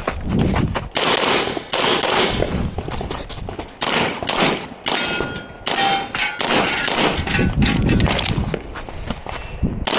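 Pistol shots fired in a fast string, with steel targets ringing as they are hit about five to six seconds in.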